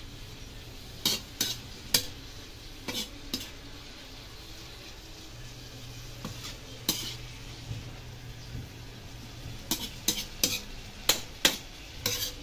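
Metal spatula scraping and clinking against a large metal wok while stir-frying a heap of bean sprouts and sweet potato, in irregular strokes. The strokes bunch up in the first few seconds and again near the end, with few in between.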